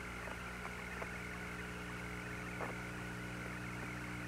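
Steady hiss and low hum of the Apollo 17 lunar-surface radio link between transmissions, with a faint steady tone and a few faint clicks.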